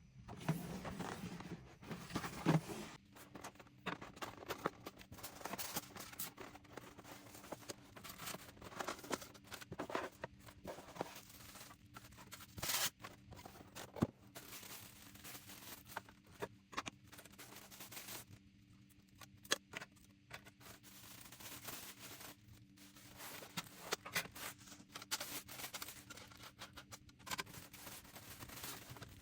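Small objects and packaging being handled and set down on a table: scattered clicks, taps and rustles at irregular intervals, with a faint steady hum underneath.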